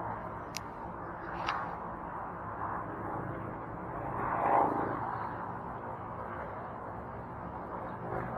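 Steady hum of distant road traffic. There are two short clicks in the first couple of seconds and a brief louder swell about four and a half seconds in.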